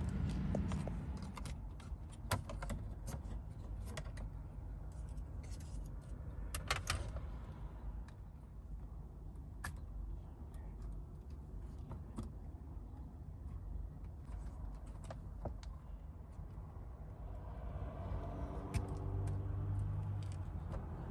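Light plastic clicks and rattles as a car's power window switch is unclipped from its door-panel latches and wiring harness, in quick clusters for the first several seconds and then only now and then, over a steady low hum.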